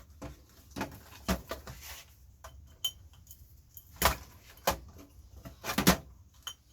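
Irregular clicks, clinks and knocks of hard metal and plastic parts being handled while an old cassette deck is taken apart with a screwdriver. There are about seven separate strikes; the loudest comes about four seconds in, with two more close together near six seconds in.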